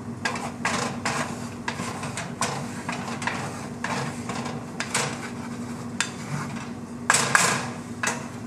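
Wooden spatula scraping and folding scrambled eggs around a frying pan in short, irregular strokes about once or twice a second, with a louder scrape a little after seven seconds in. A steady low hum runs underneath.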